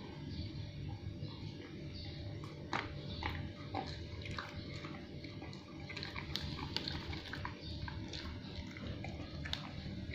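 A Samoyed chewing a snack held between its front paws: irregular sharp clicks of teeth working on the treat.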